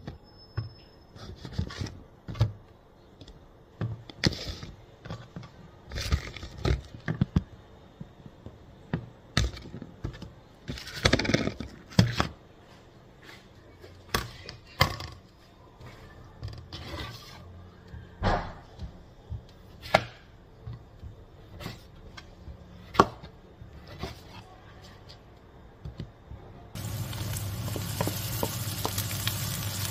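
Kitchen prep sounds: scattered knocks, clatters and scrapes of utensils and a board being handled on a counter. About 27 seconds in, a steady hiss with a low hum sets in as onions and tomatoes start frying in a pan.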